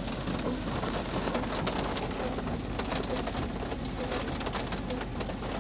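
Heavy thunderstorm rain hitting a vehicle's roof and windshield, heard from inside the cab: a steady hiss made of many separate drop hits.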